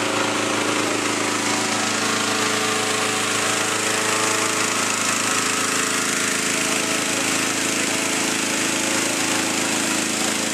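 Engine-driven balloon inflator fan running steadily, blowing cold air into a hot-air balloon envelope during cold inflation.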